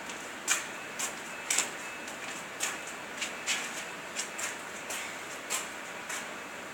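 Footsteps of hard-soled shoes clicking on a concrete floor, roughly two sharp steps a second and somewhat uneven, over a steady background hiss.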